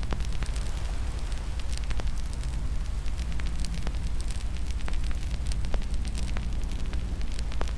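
Fire in a fireplace crackling, with irregular sharp pops and snaps over a steady low rumble.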